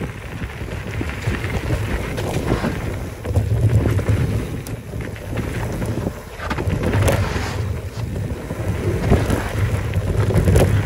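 Wind buffeting the microphone of a handlebar-mounted camera as a mountain bike rolls fast down a gravel dirt trail, the low rumble surging and easing, with scattered clicks and rattles from the tyres on loose stones and the bike.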